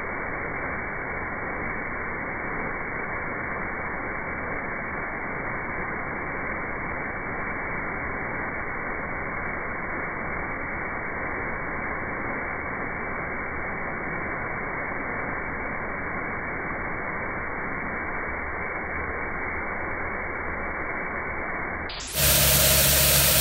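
Rotating Piranha sweeper brush spinning against turf and digging into it, a steady even rushing noise of bristles and flung dirt. Near the end this gives way abruptly to a louder sound with several steady tones.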